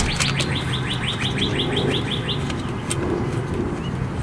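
A songbird singing a rapid trill of short repeated chirps, about seven a second, that stops about two and a half seconds in, over a steady low hum.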